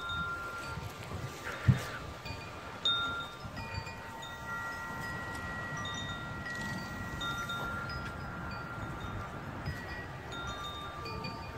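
Wind chimes ringing in the wind, several pitches struck one after another and overlapping, over wind rumble on the microphone. A single sharp thump about two seconds in.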